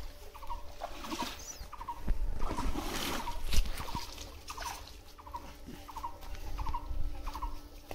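Water splashing and sloshing as a man wades through shallow pond water carrying a cast net, loudest a little past the middle. Under it, an animal's short chirping call repeats about twice a second throughout.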